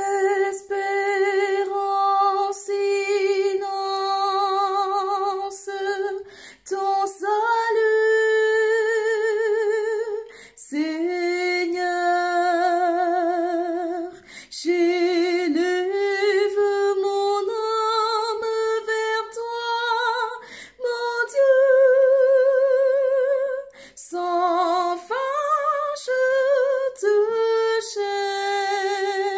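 A woman singing a slow hymn melody with vibrato, in phrases of a few seconds broken by short pauses.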